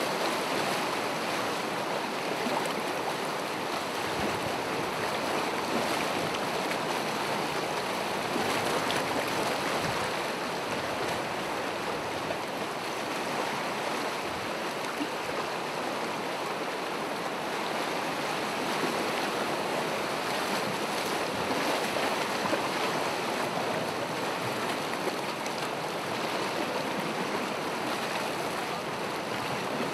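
Gentle ocean waves washing in a steady, even surge, with no single breaker standing out.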